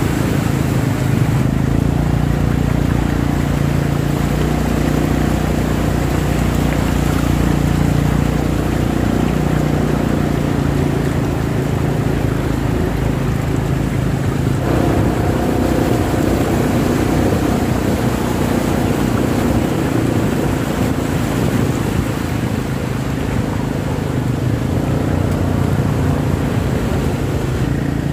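Motorcycle engine running steadily at low speed while wading through flood water on a road, with water washing around the wheels. The engine note shifts about halfway through.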